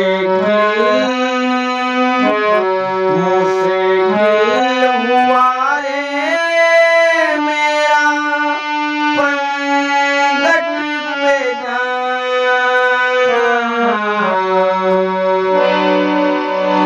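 Indian hand-pumped harmonium by Ojha Flute Works playing a bhajan melody in steady held notes that step up and down, with a low note held beneath much of it.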